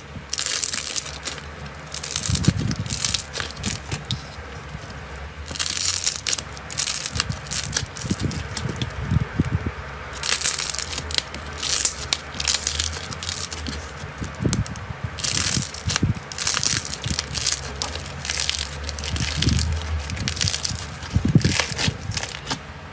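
Slime being pressed and squeezed by hand, giving repeated bursts of crackling and crunching a second or two long, with quieter handling in between.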